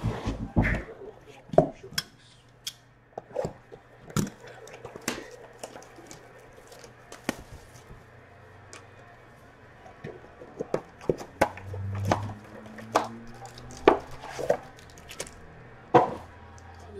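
Scattered taps, knocks and rustles from a cardboard trading-card box and its foil packs being handled on a tabletop as the box is opened and the packs are taken out.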